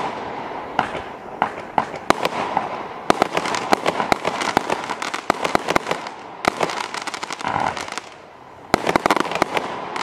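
A 16mm mixed-effect firework barrage cake firing, with many rapid sharp pops as shots launch and burst and a noisy haze between them. The pops stop briefly about eight seconds in, then resume.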